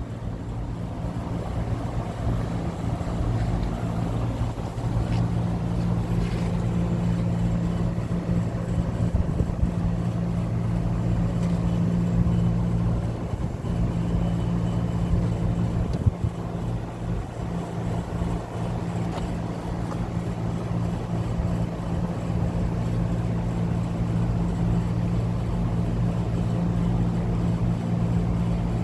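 Central air-conditioning compressor running with a steady low hum.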